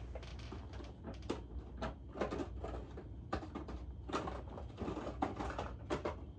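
Small cardboard soap boxes being rummaged through and moved about: irregular light knocks, taps and rustles.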